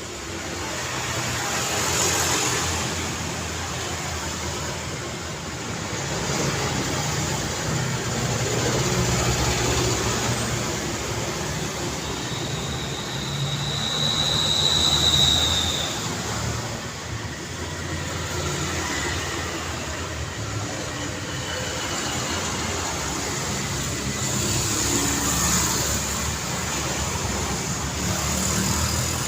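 Busy road traffic: car engines and tyres passing in a continuous wash that swells and fades. About halfway through, a thin high tone holds for a few seconds.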